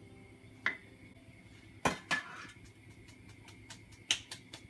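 Wooden spoon and plastic measuring cup knocking against the rim of an enamelled cooking pot while packed brown sugar is scraped out into it. There are a few sharp knocks, the loudest a pair about two seconds in, then a quick cluster of lighter taps near the end.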